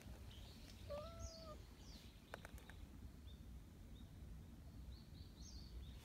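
Near silence with faint, scattered bird chirps. About a second in, a short pitched call sounds once, and a few light ticks or rustles follow.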